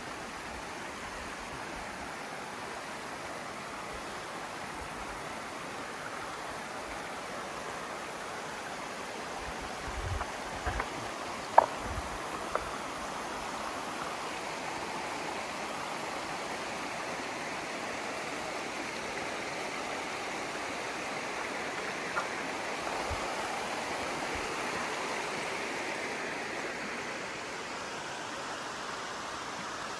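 Shallow river flowing over rounded stones, a steady rushing babble of water. A few sharp clicks come about a third of the way in, and one more past the middle.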